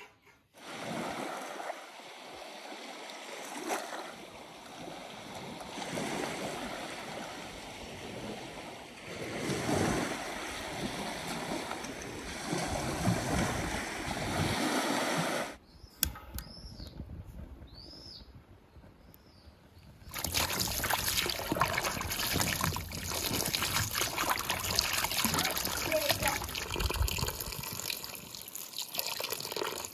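Small waves washing on a shore, then a quieter stretch with a few bird chirps, then steady running water.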